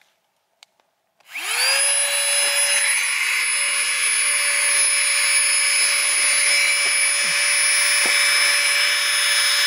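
Flextail Gear mini electric air pump switched on about a second in, spinning up quickly to a steady, noisy whine with rushing air as it inflates a sleeping mat.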